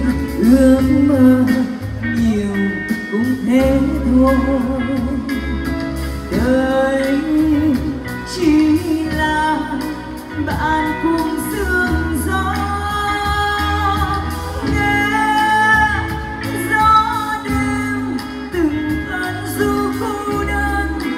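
Live band playing a Vietnamese song, with a woman singing over the instruments.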